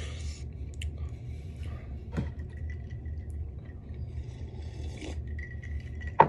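A breathy exhale through pursed lips at the start, then quiet mug handling and sipping from a ceramic mug, a spicy-food eater cooling his mouth. A short loud sound near the end is the loudest event, over a steady low hum.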